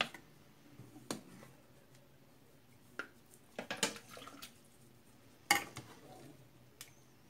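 A ladle scooping in a pot of cooked cassava and broth, knocking against the pot's rim, then the cassava and broth dropping and splashing into a blender jar. There are several sharp knocks, the loudest about five and a half seconds in.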